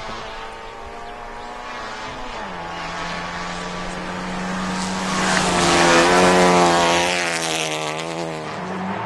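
Rally car engine at high revs, approaching, with a drop in pitch about two seconds in like a gear change. It gets louder to a peak about six seconds in as it passes, then fades a little.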